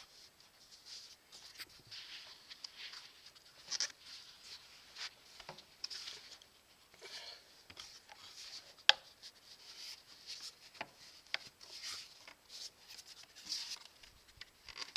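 Plastic air intake duct being handled and worked onto the throttle body by hand: faint rubbing and scraping of plastic and rubber with scattered light clicks and knocks, and one sharp click a little past the middle, the loudest sound.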